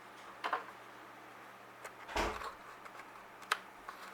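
A few small clicks and one soft knock, about two seconds in, as a RAM stick is handled and pushed into the memory slot of a PowerBook G4 laptop.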